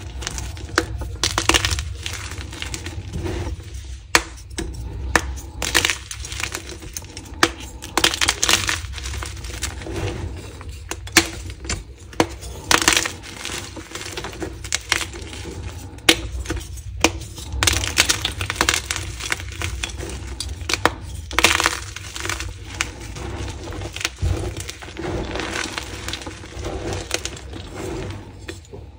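Dyed gym chalk blocks crushed and crumbled by hand: an irregular run of dry crunches and sharp cracks as the blocks break and the pieces fall onto a heap of broken chalk.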